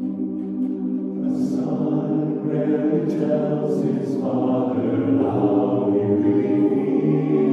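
Men's chorus singing a cappella: a held chord gives way about a second in to the chorus singing words together.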